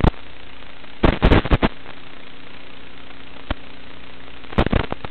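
Analog FPV video-receiver audio channel: a steady static hiss with a faint low hum, broken by loud crackling bursts of interference as the signal breaks up. One burst comes at the start, a cluster about a second in, a short click about three and a half seconds in, and another cluster near the end.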